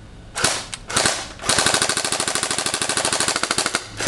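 Electric G3 SAS airsoft rifle (EG706, metal gearbox) firing on full auto: a few short bursts, then a long burst of about two seconds, and another burst starting near the end.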